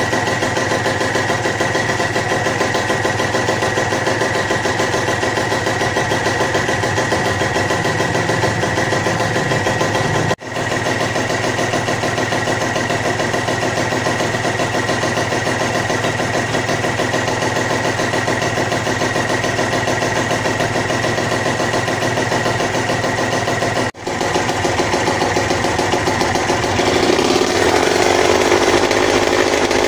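Yamaha TZM 150's two-stroke single-cylinder engine idling steadily on a test run of the nearly finished rebuild, to check its cooling and wiring. The sound breaks off for an instant twice at edits, and the engine runs louder near the end.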